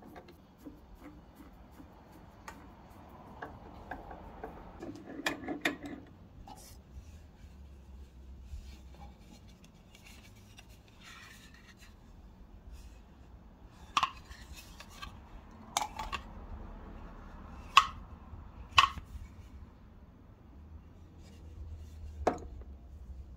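Handling of a hinged wooden tortilla press: scattered sharp wooden knocks and clicks as its two boards are opened and closed. The knocks come singly, with the loudest in the second half.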